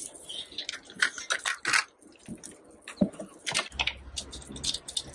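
Dried nettle stalks used as kindling crackling and snapping as they are handled and catch fire: a rapid, irregular scatter of sharp clicks. A low steady rumble comes in a little past halfway.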